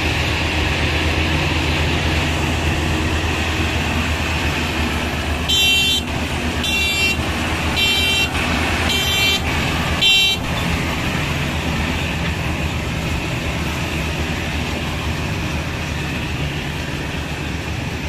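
Diesel engine of a combine harvester running steadily, while a high-pitched vehicle horn sounds five short blasts about a second apart, starting about five seconds in.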